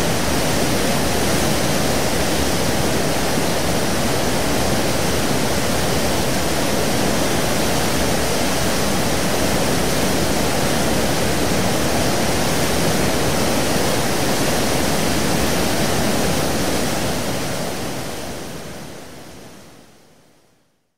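Sea water churning and rushing in the wash at the stern of a 17,400-ton car ferry: a steady, dense rush that fades out over the last few seconds.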